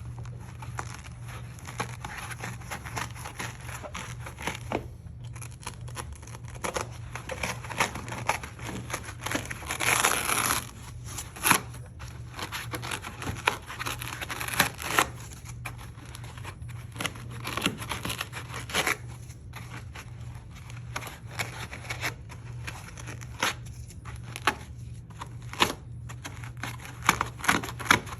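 Kaizen foam being cut and its layers torn out by hand to deepen a tool pocket: irregular scratchy tearing and crackling, loudest about ten seconds in. A steady low hum runs underneath.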